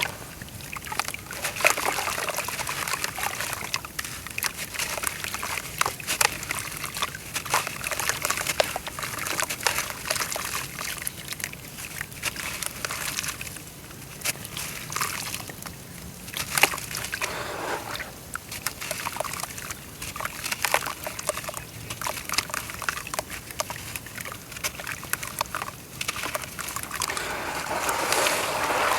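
Dry clumps of brown dirt crumbling in water, with many small crackles over the sound of moving water and a few louder swells.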